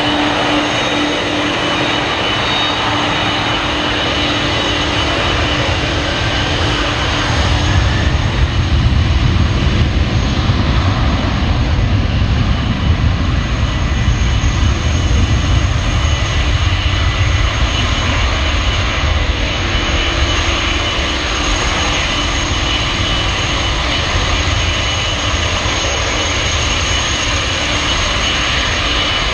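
Boeing 747-400's four jet engines running up on the runway for takeoff: a steady high whine over engine noise, with a low rumble that swells about a quarter of the way in and eases again after about two-thirds.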